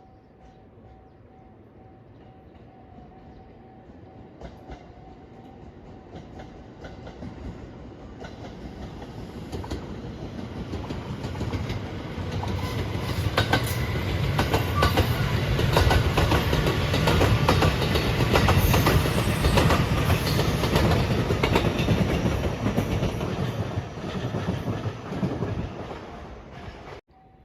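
Electric passenger train approaching and passing the crossing, wheels clacking rhythmically over rail joints. It grows steadily louder, is loudest in the middle as the cars go by, and cuts off abruptly near the end.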